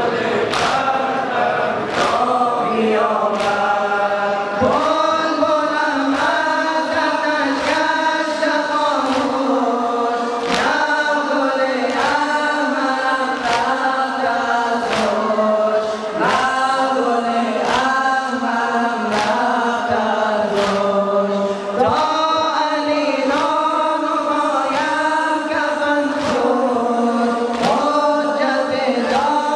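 Male reciters sing a noha mourning lament through microphones, in long held, sliding phrases. Over it the congregation beats their chests in unison (sina zani), with sharp strikes about every 0.7 seconds.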